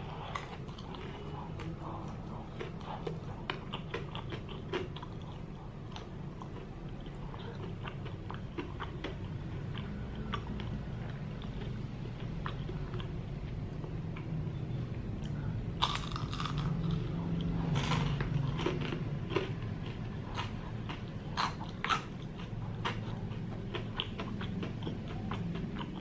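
A person biting into and chewing crispy batter-fried breadfruit: repeated crackling crunches of the fried batter coating, loudest and densest about two-thirds of the way through, over a steady low hum.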